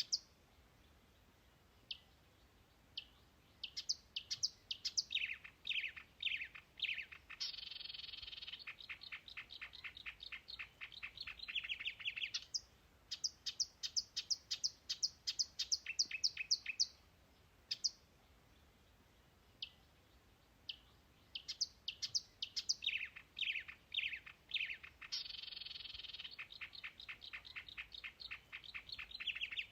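Songbird singing. Long phrases of quick, high, down-sliding chirps run into a fast, dense trill and then scattered chirps. This happens twice, with a few quieter seconds between the phrases.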